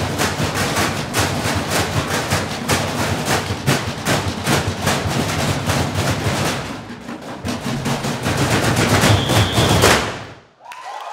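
Percussion ensemble playing fast, dense rhythms on galvanized metal trash cans and trash-can lids struck with sticks and hands. The playing builds near the end and stops sharply about ten seconds in, and applause begins just after.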